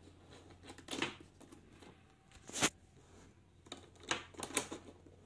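Key turning in the lock cylinder of a Yale Linus smart lock to lock it by hand: separate mechanical clicks and snaps from the cylinder and bolt, the sharpest about two and a half seconds in, then a quick run of lighter clicks near the end.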